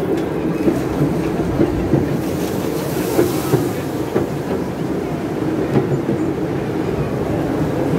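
Panoramabahn park train running along its track: a steady rumble of the carriages with small, irregular clicks from the wheels on the rails.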